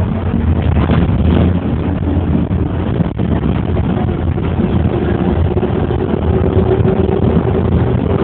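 Steady low rumble of a moving vehicle heard from inside it, with a thin steady whine over it in the second half.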